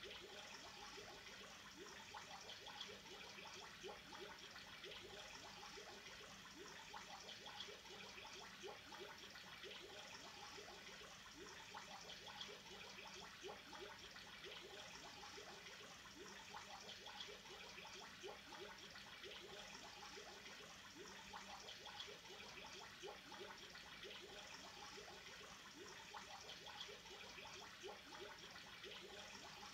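Faint, steady trickling and bubbling of water in a home aquarium, a dense patter of small bubbly plops over a faint steady hum.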